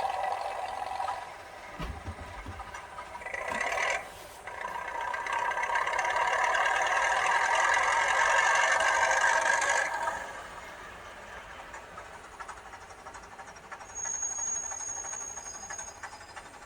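Engine sound of an HO-scale Billard A80 D railcar model, played by its digital (DCC) sound decoder through the model's small speaker. It swells from about four seconds in, stays loudest until about ten seconds, then drops back to a quieter running sound.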